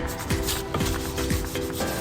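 Repeated rubbing strokes, like sandpaper working wood, over background music.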